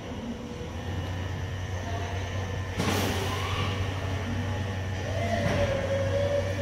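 Steady low mechanical hum, with a brief rush of noise about three seconds in.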